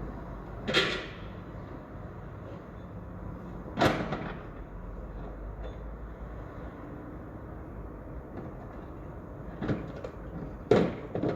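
Construction site ambience: a steady low background din broken by loud, sharp bangs, one about a second in, another near four seconds, and a cluster of several near the end.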